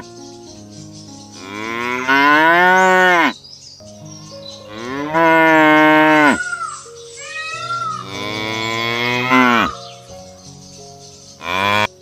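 Cattle mooing: three long moos of about two seconds each, each rising and then falling in pitch, and a short moo near the end.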